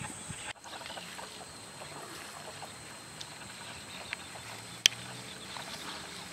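Faint outdoor background with a steady high-pitched tone, a few small clicks, and one sharp click just under five seconds in; the sound drops out briefly about half a second in.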